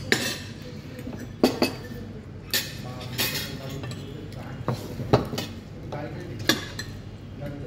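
Cutlery clinking and scraping against plates during a meal, with several sharp clinks at uneven intervals.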